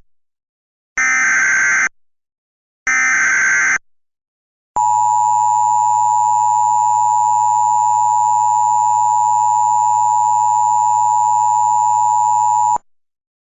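Emergency Alert System tones opening a flash flood emergency alert. First come two roughly one-second bursts of the SAME header's chirping digital data, about a second apart. From about five seconds in, the EAS attention signal plays: a steady two-tone alarm held for about eight seconds, which then cuts off sharply.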